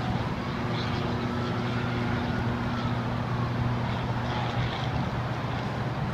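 Distant city traffic noise, with an emergency siren wailing slowly up and down, over a steady low hum.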